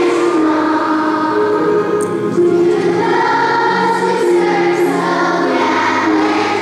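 A choir singing together in long, held notes that change pitch every second or so.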